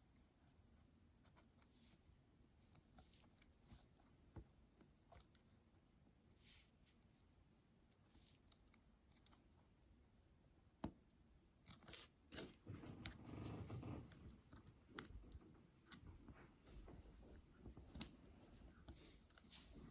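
Faint small plastic clicks and handling from a spacebar keycap being fitted to its clips on an Apple Magic Keyboard for iPad. A busier run of clicking and rubbing starts just past halfway, with a sharp click near the end.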